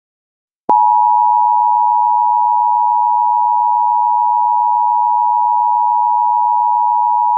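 Emergency Alert System attention signal: a steady two-tone electronic tone that starts with a click about a second in and holds at one level without a break.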